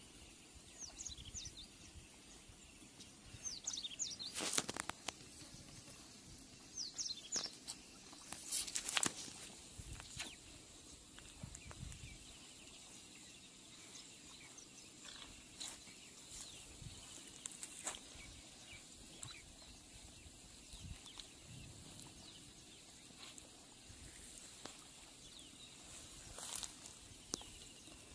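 Cow slurping and sucking up a watery feed mash from a basin, in uneven gulps with two louder bouts about four and nine seconds in. Small birds chirp faintly now and then.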